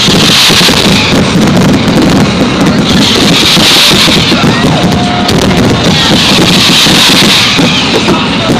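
A dense, continuous barrage of fireworks bursts and crackling, loud enough to overload the microphone, with the crackle swelling about every three seconds.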